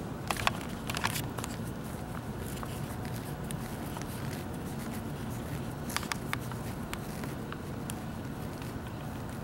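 Steady outdoor background noise beside an empty railway line, with a few light clicks and crunches, some about a second in and a couple more around six seconds.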